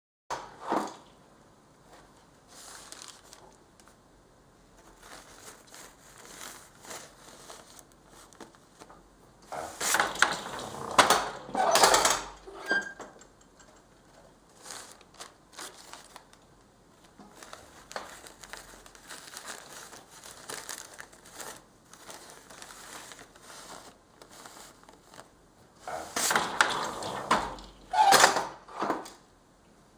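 Weaving on a handloom with paper: paper crinkling and rustling as it is worked, with louder bursts of crinkling about ten seconds in and again near the end.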